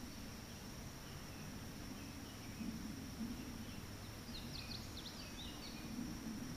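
Woodland ambience: birds chirping in short, falling calls, most of them past the middle, over a steady high insect buzz.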